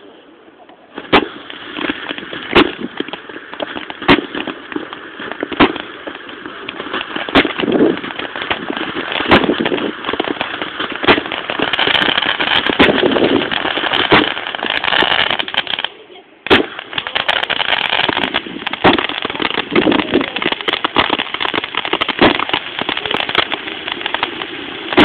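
Fireworks going off: a continuous hissing crackle of sparks, with sharp bangs every second or two. About two-thirds through, the crackle drops out briefly, then a loud bang brings it back.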